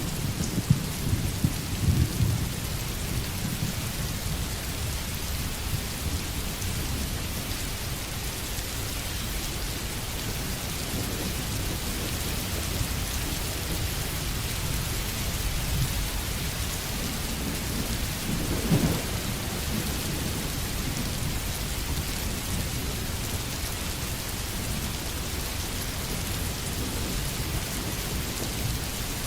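Steady sizzling of food cooking in a hot pan, with a low rumble beneath it and one brief louder swell about two-thirds of the way through.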